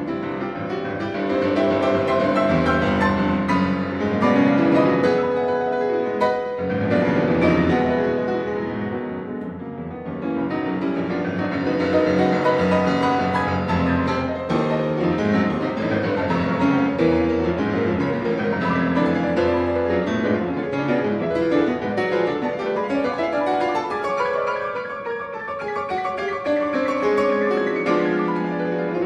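Background music played on a keyboard instrument, a continuous run of notes.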